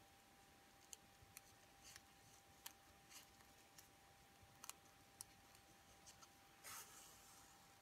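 Near silence: a faint steady hum under a few faint, scattered clicks and one brief soft rustle, from hands pushing a needle and gathering thread through satin ribbon.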